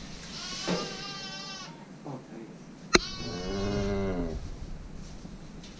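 Two livestock calls: a higher-pitched one about half a second in, and a lower, longer one at about three seconds. A sharp click comes just before the second call.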